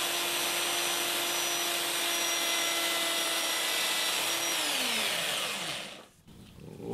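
A small electric power tool runs with a steady whine at constant speed while she finishes off a part. About four and a half seconds in it is switched off, and it winds down over a second or so with falling pitch.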